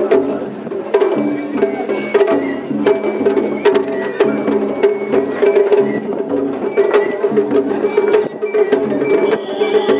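Japanese festival float music (matsuri ohayashi): drums and percussion struck in a quick, continuous rhythm, with a high melody of short held notes over it.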